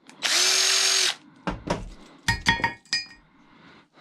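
A power drill runs for about a second at a steady whine, backing out screws, then a few sharp metal clinks ring briefly as loosened parts knock together.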